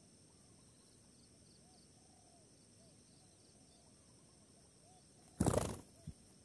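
Garden ambience: a steady high insect drone with many faint, short bird chirps. About five and a half seconds in, a sudden loud rustling burst lasts about half a second, followed by a short thump.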